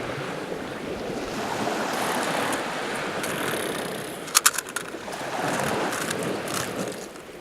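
Sea waves washing onto the shore, swelling and fading, with a quick clatter of sharp clicks about four and a half seconds in.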